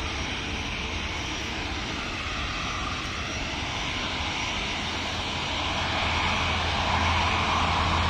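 Aeroplane engines running steadily, growing louder about six seconds in.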